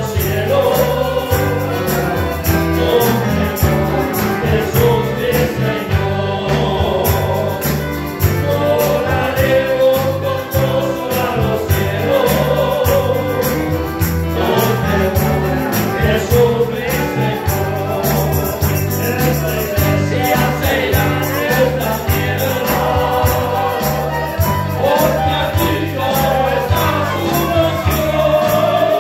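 Christian praise song sung by a group of voices with band accompaniment, over a steady beat.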